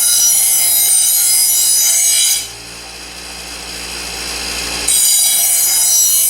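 Delta 6-inch variable speed bench grinder sharpening a steel blade against the wheel, a loud harsh rasp. About two and a half seconds in the blade comes off the wheel and only the quieter spinning grinder is left. The grinding starts again near the five-second mark.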